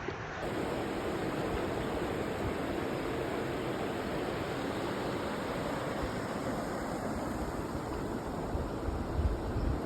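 River water rushing steadily over rocks, with a few low thumps of wind on the microphone near the end.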